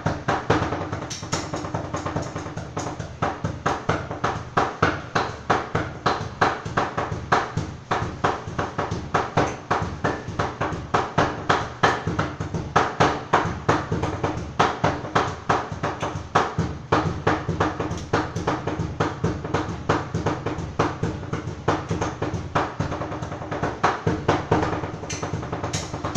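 Cleavers chopping sisig on a wooden chopping board in rapid, rhythmic strokes, several a second, beating out a drum-like pattern.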